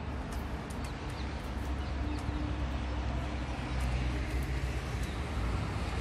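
Steady outdoor rumble of distant road traffic, with faint scattered ticks.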